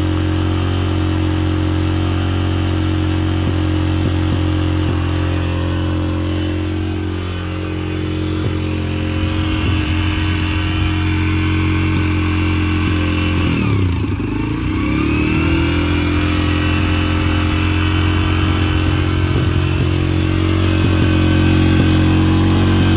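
Yamaha TT-R125's single-cylinder four-stroke engine running at a high idle. About two-thirds of the way through, the revs dip sharply and climb back. The high idle is something to do with the throttle cable, and turning the handlebars changes the revs.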